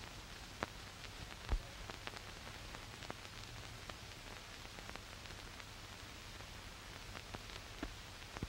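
Surface noise of an old optical film soundtrack: a steady hiss with scattered crackles and pops, the loudest a low pop about one and a half seconds in.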